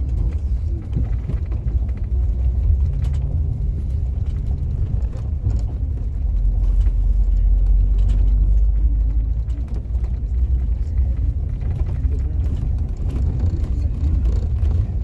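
Coach's diesel engine and running gear heard from inside the cab as a steady low rumble, swelling for a few seconds midway, with scattered light ticks over it.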